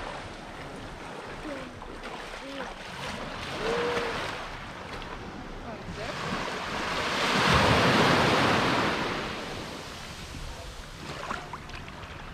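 Sea waves washing onto a beach, with one wave swelling up and breaking about two-thirds of the way through before it fades back.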